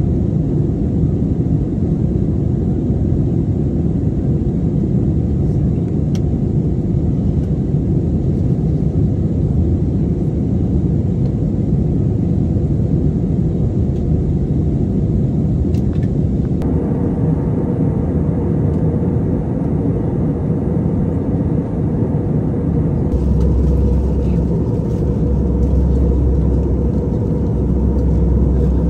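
Steady cabin noise of an Airbus A320 in cruise, heard from a window seat: a constant rush of airflow and engine noise. The sound changes abruptly about two-thirds of the way through and again a few seconds before the end, where a deep low hum is added.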